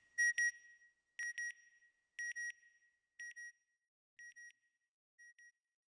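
Electronic beep effect: high-pitched double beeps repeating about once a second, each pair fainter than the one before, fading out like an echoing signal.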